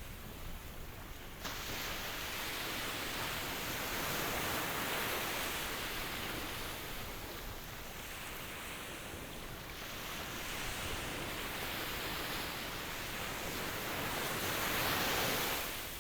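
Ocean surf: a continuous wash of waves that steps up suddenly about a second and a half in, then swells and eases in long surges, loudest near the end.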